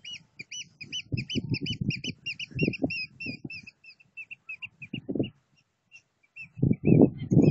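A bird calling in a rapid series of short, high arched notes, about four a second, thinning out after about four seconds. Low, muffled knocks run underneath and grow louder near the end.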